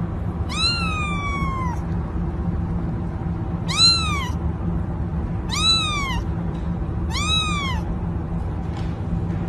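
Kitten meowing four times, the first call longer and falling in pitch, the other three short and arched. A steady low background hum runs underneath.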